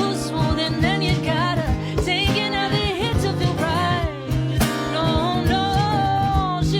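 A song performed live: a singing voice over a drum beat and other instruments, built up with a looper.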